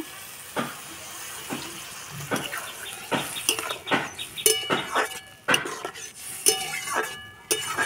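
Water poured from a steel tumbler into a hot metal kadai of fried red lentils, hissing at first. Then a steel spatula stirring the dal, clinking and scraping against the kadai with irregular metallic strikes, some of them ringing.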